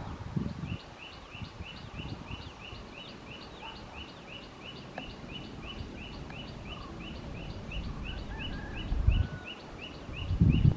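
A rapid, even chirping call repeated about four times a second, over a low rumble, with two louder low thumps near the end.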